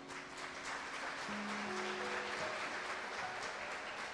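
Audience applauding, a dense patter of claps, over soft background guitar music holding slow sustained notes.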